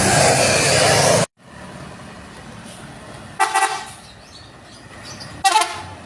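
A large vehicle rushing past close by, cut off abruptly about a second in, then two short toots of a tour bus's basuri telolet horn about two seconds apart.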